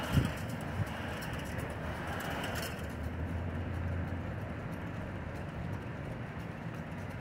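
Steady outdoor street ambience with distant traffic, a low engine hum swelling briefly around the middle. Two short knocks come early, within the first second.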